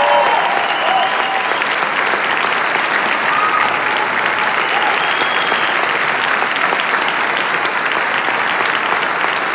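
Theatre audience applauding steadily at a curtain call, with a few voices rising over the clapping.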